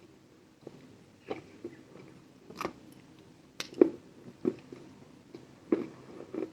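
A person biting and chewing lumps of chalk, giving about a dozen sharp, dry crunches at irregular intervals, the loudest a little past halfway.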